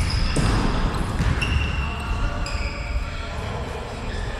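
Sounds of a football match in play: the ball thumping off boots, with distant players' calls and a low rumble.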